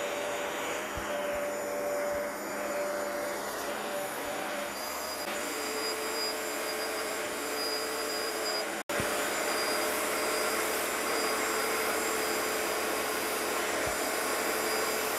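Bissell ProHeat 2x Revolution Pet Pro Plus carpet cleaner running steadily, its suction drawing through the hose and upholstery hand tool as it is worked over fabric. The sound cuts out for an instant about nine seconds in, then runs on.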